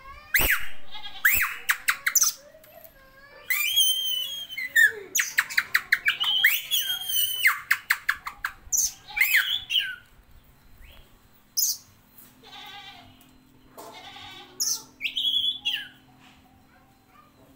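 Oriental magpie-robin singing: a varied, rapid run of clear whistles, quick repeated notes and sliding chirps. The song is loudest through the first half, then turns to softer fragments with a louder burst of phrases near the end.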